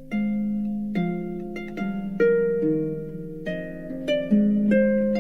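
Harp music: slow plucked notes and chords, each ringing out and fading.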